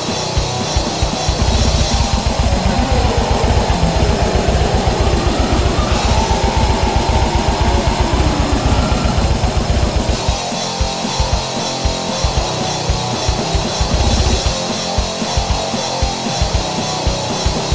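Home-made rock jam with a drum kit and guitar. From about two seconds in, the drumming turns fast and dense under a wash of cymbals, then drops back to a sparser beat after about ten seconds.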